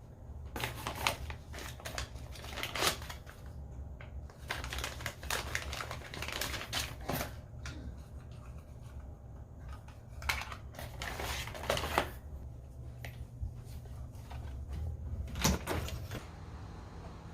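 Irregular clicking, tapping and scraping of small objects being handled, over a steady low hum.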